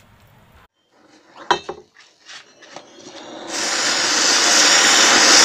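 An anar (flowerpot fountain firecracker) on a steel glass: a few light clicks and knocks, then its fountain catches with a hiss that builds from about three seconds in and becomes a loud, steady hiss.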